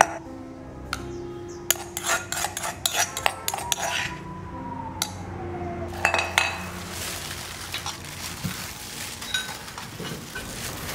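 Metal bowls, pestle and spoon clinking and scraping irregularly on a wooden chopping block, with a ringing tone that slides downward about five seconds in; after about six seconds only light handling noise.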